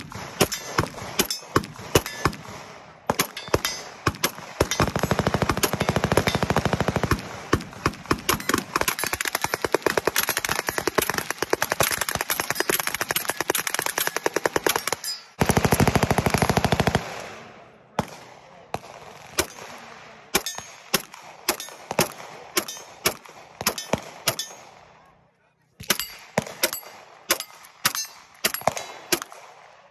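Gunfire at a shooting range: a dense string of shots with two long bursts of very rapid automatic fire, around five and sixteen seconds in. After that come slower single shots, with a short pause just before the end.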